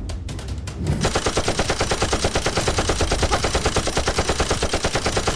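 Automatic machine-gun fire, a fast, even rattle of shots that starts about a second in and keeps going.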